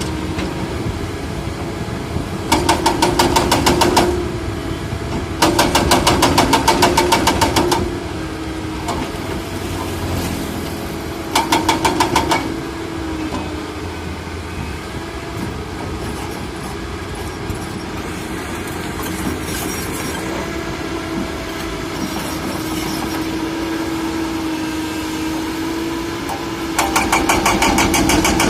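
Excavator diesel engine running steadily, broken by several bursts of rapid, evenly spaced clattering lasting one to three seconds each.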